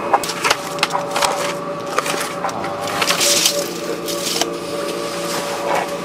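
Construction machinery running with a steady hum, overlaid by repeated sharp knocks and crunching.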